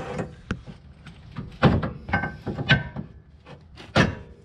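Claw hammer striking steel suspension parts, driving out a lower control arm bolt. Half a dozen uneven, sharp metal-on-metal knocks, some with a brief ring.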